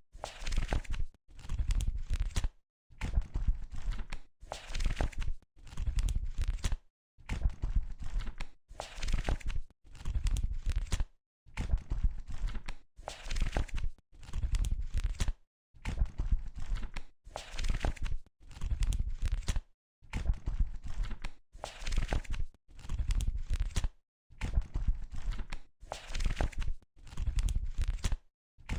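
Book pages being turned one after another, each turn a papery rustle with a soft low flap, repeating about every second and a half with silent gaps between.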